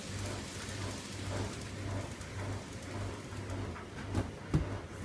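Model train running on the layout track: a steady rumbling hiss with a low pulse repeating two to three times a second. Two sharp knocks about four seconds in.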